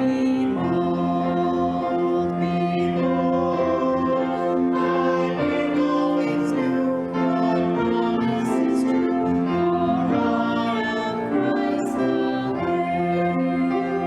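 Slow church music with long held notes.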